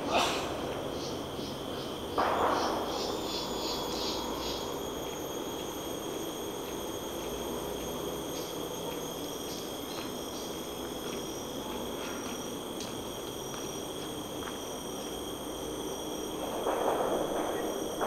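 Forest insects droning steadily at several high pitches, with a quick run of high chirps in the first few seconds. A low rushing haze lies beneath, with louder swells of rushing noise about two seconds in and again near the end.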